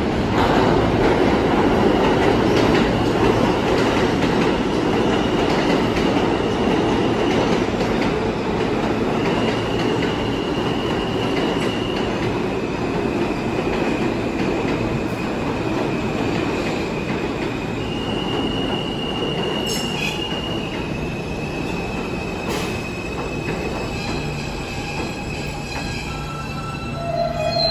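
New York City Subway R160 train running on the tracks, a steady heavy rumble of wheels on rail. High-pitched wheel squeal rings over it from about five seconds in until near the end, where a few brief higher tones sound.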